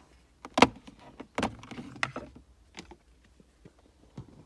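A few sharp, irregular clicks and knocks, the loudest about half a second in, then lighter ones through the rest.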